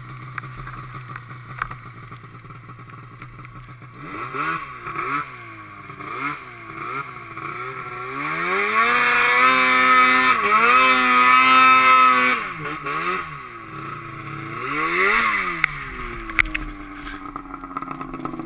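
Snowmobile engine idling, then revved in a run of short blips and one long high rev of about four seconds before dropping back toward idle, as the sled is worked to get unstuck from deep powder.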